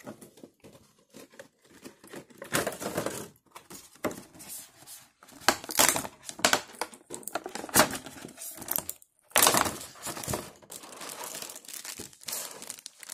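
Thin clear plastic packaging, a blister tray and a plastic bag around a figure, crinkling and crackling in irregular bursts as hands work the figure out of it, with sharper tearing-like rustles.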